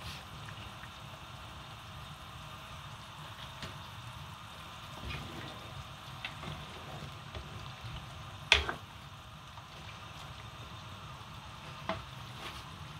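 A pot of soup stock bubbling steadily on the stove. One sharp knock of a cooking utensil comes a little past halfway, with lighter knocks before and after it.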